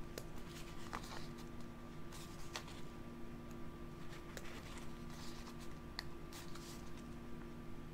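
Faint paper rustles and small scattered clicks from sticker sheets being handled and stickers peeled and pressed into a paper planner, over a steady low hum.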